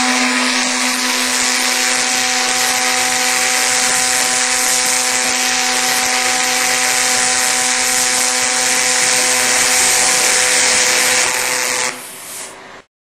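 Twin-wire MIG welding arc on thick aluminium: a steady, loud hiss with a constant hum underneath. It dies away about twelve seconds in.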